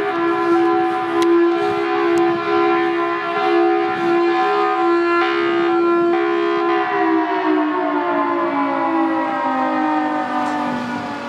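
Federal Signal Thunderbolt 1003 Hi-Lo rotating siren sounding a steady, harsh pitched tone, the level wavering as the horn turns. About seven seconds in it starts winding down, the pitch sliding steadily lower.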